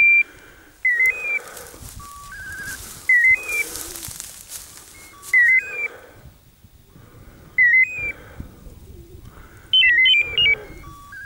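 Electronic beeper collar on a running pointer, chirping a short rising two-step beep about every two seconds, with lower steady beeps in between. A quicker flurry of higher beeps comes near the end.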